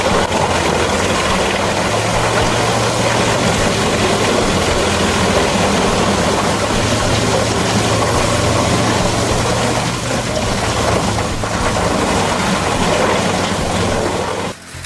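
Heavy shredding machine running under load: a steady engine hum beneath a continuous dense noise of material being chewed, which cuts off abruptly just before the end.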